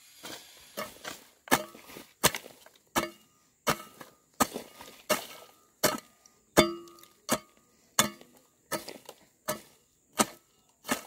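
A machete chopping bamboo in a steady series of sharp strokes, a little more than one a second. A few strokes leave a short ringing tone.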